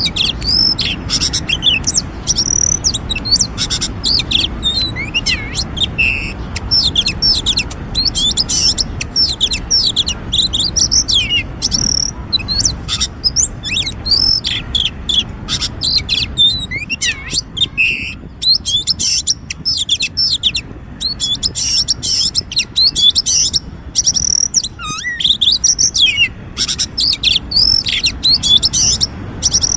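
Oriental magpie-robin singing a long, rapid run of varied whistles, chirps and slurred notes, with a short lull a little past the middle.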